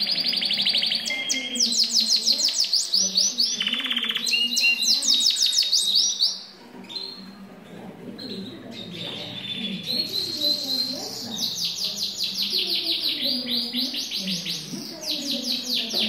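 Scotch Fancy canary singing: fast rolling trills of rapidly repeated notes, each roll at a different pitch. The song falls away about six seconds in and picks up again in full a few seconds later.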